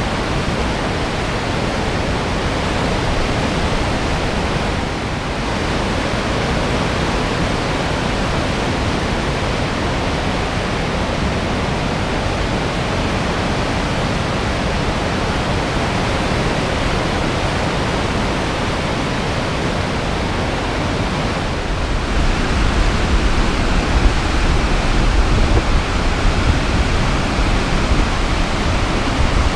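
Steady loud rush of the St. Louis River's whitewater rapids below Thompson Dam, churning over rock ledges. About two-thirds of the way through, a deeper, gustier rumble comes in under it.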